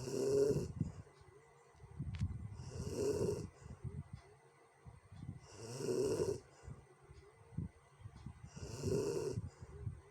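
A sleeping person snoring roughly, about four snores one every three seconds, each a low rattle with a hissing breath.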